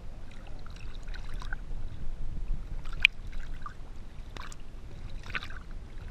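Lake water lapping and splashing against a floating kneeboard and a chest-mounted camera, with a sharp splash about three seconds in and a few smaller splashes around it, over a steady low rumble.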